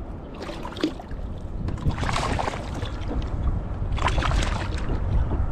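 Strong wind buffeting the microphone with a steady low rumble, and choppy water slapping and splashing against a kayak hull in three splashy bursts as a hooked bass is brought alongside.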